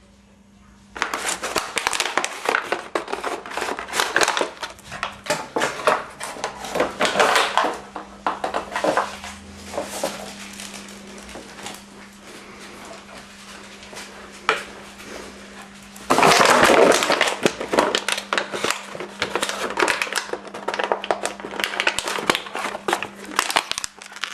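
A dog chewing and crushing an empty plastic bottle: crackling and crinkling in irregular bursts, quieter for several seconds in the middle and loudest about two-thirds of the way through, over a steady low hum.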